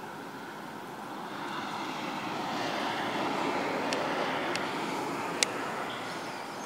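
A passing motor vehicle's rumble and tyre hiss swell to a peak about halfway through and then fade, with a few faint clicks near the end.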